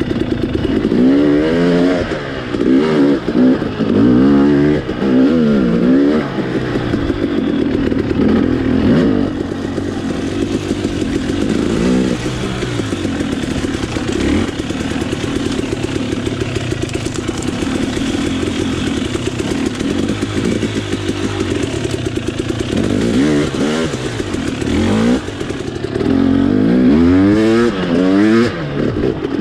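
Off-road motorcycle engine being ridden, revving up and falling back again and again as the throttle is opened and closed, with steadier running through the middle and hard rising revs near the end.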